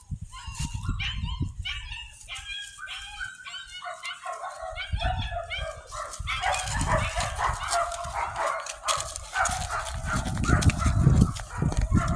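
Young puppies, almost ten weeks old, whining and yipping: a string of short, high whines at first, then from about six seconds in several pups calling over one another.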